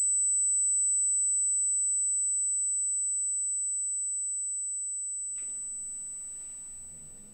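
A single steady, high-pitched ringing tone that slowly fades: a ringing-in-the-ears effect, the sound of someone dazed after a beating. Faint room sound with a low hum fades in about five seconds in.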